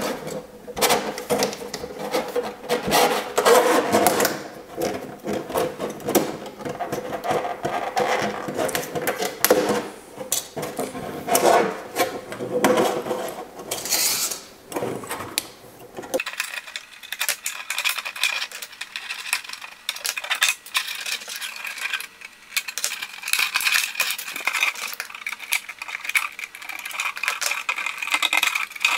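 Thin clear plastic RC car body crackling and clicking as it is flexed and handled, with irregular sharp snaps as small scored pieces are broken off. About halfway through the sound turns thinner and lighter, a steady high rustle with scattered clicks.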